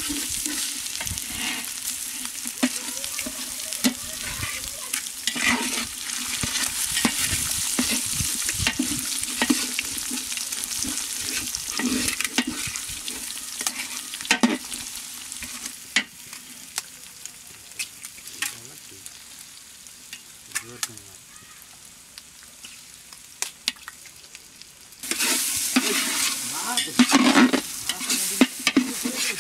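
Eggs sizzling in hot oil in a large aluminium pot, with scattered sharp knocks as a knife cracks eggs into it. The sizzle dies down for several seconds past the middle, then comes back loud with a metal spatula scraping and stirring the eggs near the end.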